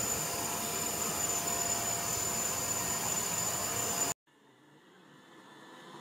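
Vacuum cleaner running with its nozzle on a cat's fur: a steady rush of air with a high, even motor whine. It cuts off abruptly about four seconds in, leaving a faint sound that slowly grows louder.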